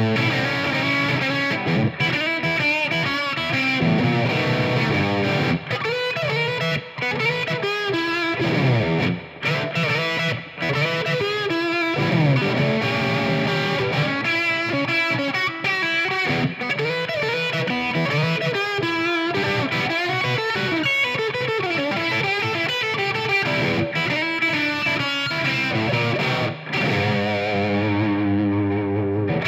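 Japanese-made Squier Stratocaster-style electric guitar played through an amplifier: single-note runs with string bends, moving to held notes with vibrato near the end.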